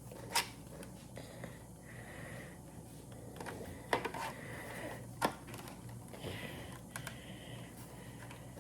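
Handling of an 18V lithium-ion battery pack and its charger: three sharp clicks, one near the start and two about four and five seconds in, over quiet handling noise.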